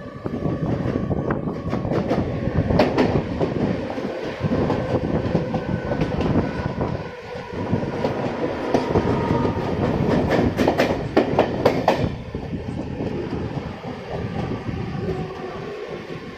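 Train running on rails: a steady rumble with clattering wheel clicks over the rail joints, busiest about ten to twelve seconds in, then easing off and getting quieter.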